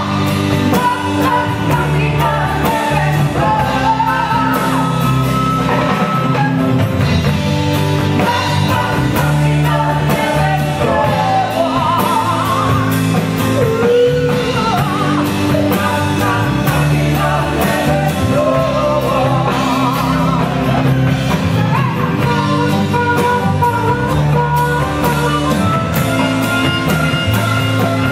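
Live rock band: a woman singing lead over drums and acoustic guitar, with harmonica.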